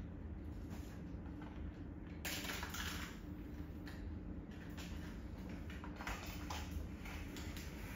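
Small clicks and rustles of tools and a plastic case being handled, with a louder rustle about two seconds in, over a steady low hum.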